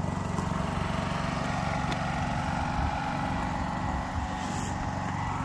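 Small portable generator's engine running steadily at an even pitch.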